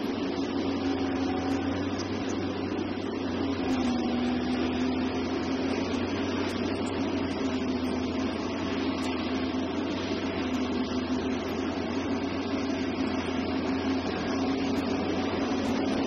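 Liebherr R 984 C hydraulic excavator working under load as it digs and lifts its bucket: a steady diesel drone with a hydraulic whine that dips and rises slightly in pitch.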